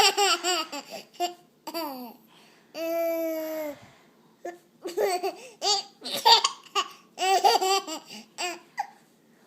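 A baby's hiccuping laughter: short high-pitched bursts of giggles in quick runs, with a long steady squeal about three seconds in.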